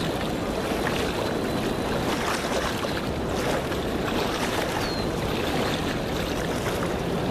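Steady rush of river water moving along a rocky bank, close to the microphone.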